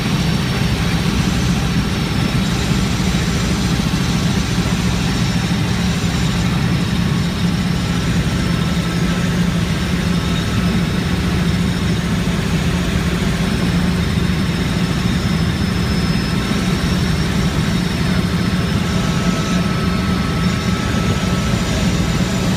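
Helicopter in flight heard from inside the cabin: a loud, steady drone of rotor and engine.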